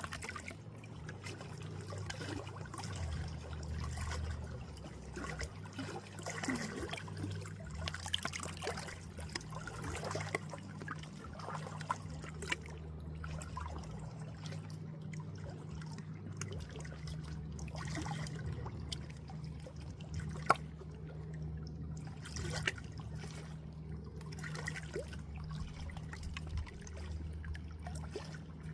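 Water trickling and dribbling, with scattered small splashes and drips over a steady low hum. Two sharper drips or splashes stand out, the louder about twenty seconds in.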